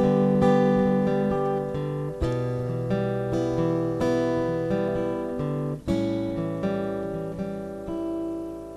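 Acoustic guitar playing an instrumental break in a country song: a few strummed chords, each left to ring and fade before the next strum.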